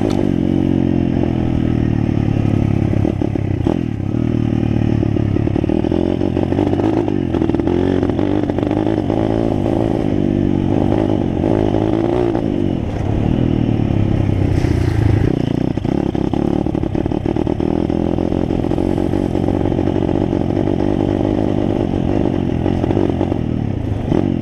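Pit bike's single-cylinder engine running under load, its pitch rising and falling as the throttle opens and closes, with the bike clattering over a rough dirt track.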